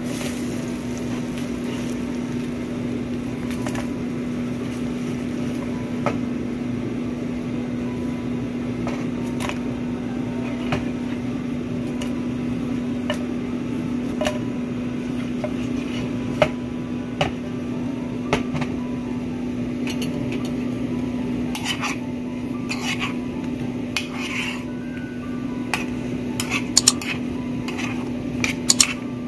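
Nonstick frying pan clattering as it is shaken on a gas stove grate, and a metal spoon clinking and scraping against it, with sharp clicks coming more often in the second half. A steady low hum runs underneath throughout.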